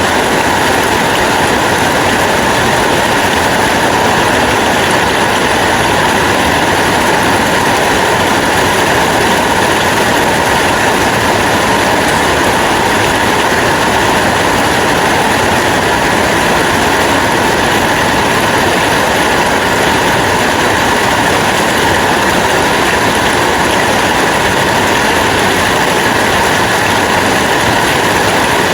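Steady rain falling, an even, unbroken hiss without distinct drop hits.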